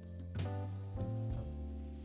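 Instrumental background music with steady held notes and a low bass line, new notes coming in about every half second.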